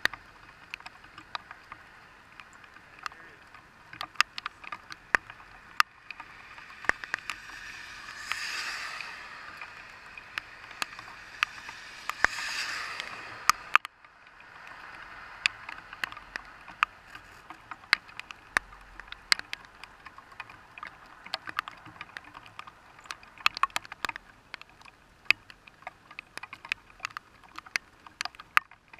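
Rain striking a car's windshield and body, heard from inside the car as scattered sharp ticks of individual drops over a soft hiss. Two brief swells of rushing noise rise and fade about eight and twelve seconds in.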